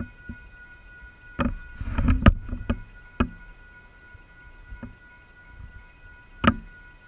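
Knocks and bumps from the camera being handled and turned, loudest and most frequent in the first half, with one more sharp bump near the end. Under them, a steady high ringing tone holds throughout.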